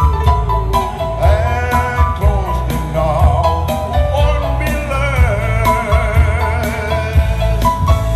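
A singer holding long notes with vibrato into a microphone, over backing music with a bass line and a steady beat played through a PA.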